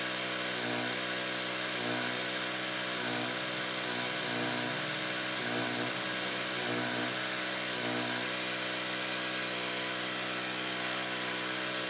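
A portable generator engine running steadily under welding load, its note swelling about once a second, with a steady hiss from a wire-feed welder over it.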